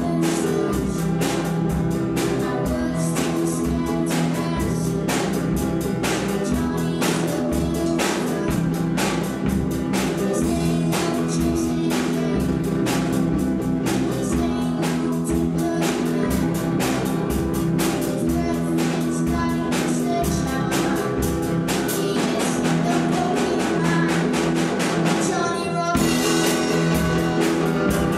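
A rock band playing a song: electric guitars, bass guitar and drum kit driving a steady beat, with a sung lead vocal. About two seconds before the end there is a brief break, and the band comes back in slightly louder.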